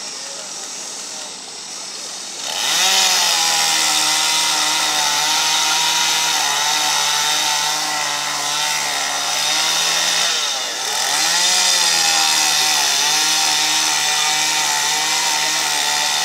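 Gasoline chainsaw revving up to full throttle about two and a half seconds in and held there while cutting into a wooden log carving, its pitch wavering with the load. It drops back briefly near ten seconds, then revs up again.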